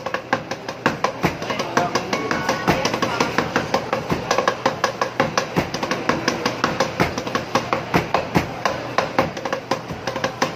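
Cleavers chopping sisig on chopping boards in a fast drumming rhythm, several sharp knocks a second, as the choppers beat out a pattern.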